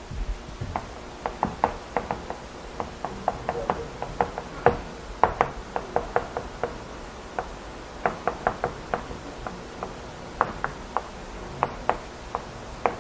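Chalk writing on a chalkboard: an irregular run of sharp taps and short scratches, about three a second, as the strokes of Chinese characters are put down.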